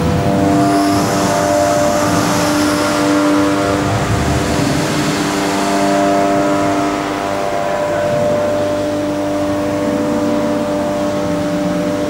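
Hydraulic drive of a large wave generator running: a loud, steady mechanical hum made of several held tones that shift in strength, over a wash of noise.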